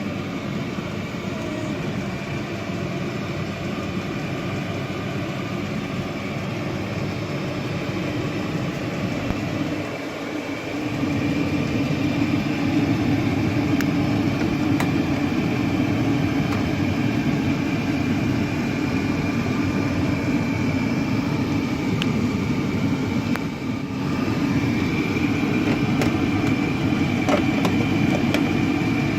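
Portable 5 kW diesel air heater running, a steady fan whine over its burner and blower noise. It gets louder about ten seconds in and again near the end.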